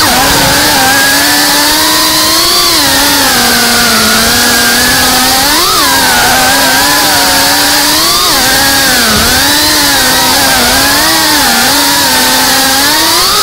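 CineLog35 cinewhoop FPV drone's motors and propellers whining steadily, the pitch repeatedly rising and falling with the throttle as it manoeuvres.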